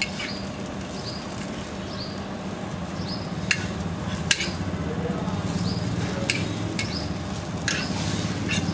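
A metal spatula scrapes and taps on a flat iron griddle as a dosa is lifted and rolled, with a few sharp clicks against a steady low hum.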